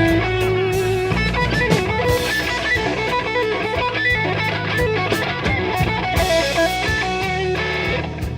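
Blues band playing a slow blues instrumental break: electric guitar lead over bass and drums, with quick runs of notes and a few bent notes near the end.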